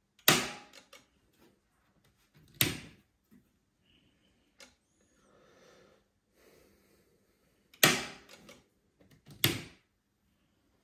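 A residual-current breaker in a distribution board snapping open as the tester trips it and clicking back on when its lever is raised, during an automatic RCD trip-time test: four loud, sharp clicks, two in the first few seconds and two near the end.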